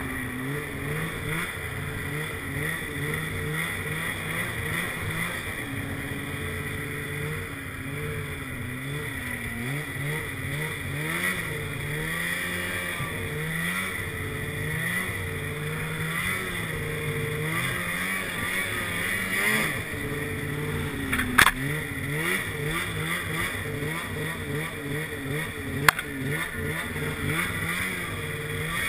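Polaris snowmobile engine running as the sled rides a trail, its pitch rising and falling continually with the throttle. Two sharp knocks, about four seconds apart, come late on.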